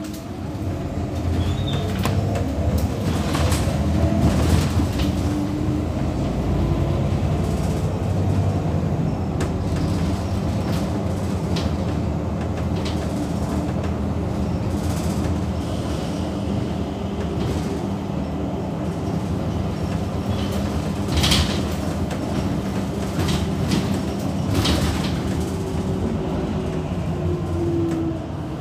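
Inside a city bus on the move: a steady drivetrain hum and road rumble, with a whine that rises and falls as it pulls away near the start. Occasional knocks and rattles come from the cabin.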